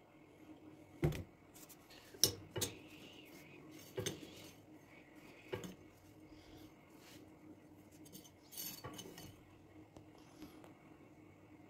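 Steel knife clinking and knocking against a stone countertop as it is picked up, turned over and set down: several sharp knocks in the first half, then a brief scrape and rattle later on.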